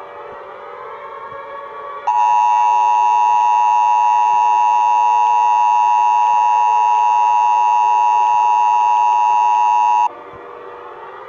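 Emergency Alert System attention signal: a loud, steady two-tone beep that starts abruptly about two seconds in and cuts off after about eight seconds. A civil-defense-style siren wails, rising and falling, before and after it.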